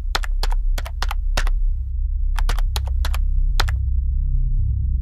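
Keyboard typing sound effect: two short runs of key clicks, the second starting a little over two seconds in, over a steady low drone.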